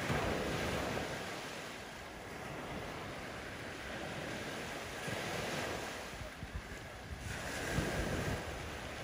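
Small surf waves breaking and washing up a sandy beach, the rush of water swelling and easing several times, with wind on the microphone.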